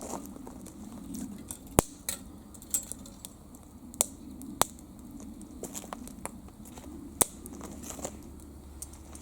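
Wood fire crackling, with about half a dozen sharp, irregular pops, the loudest a little under two seconds in.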